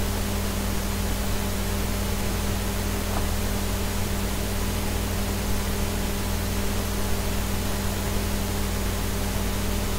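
Steady hiss with a constant low electrical hum underneath, unchanging throughout: background noise of the recording rather than any event.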